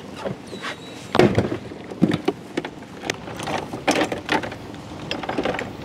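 A string of irregular knocks and clatters, loudest a little over a second in and again around four seconds in, like hard gear being handled and set down.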